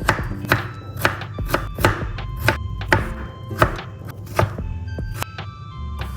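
Knife chopping food on a cutting board: a run of sharp, uneven strokes, roughly two a second, with a few louder hits.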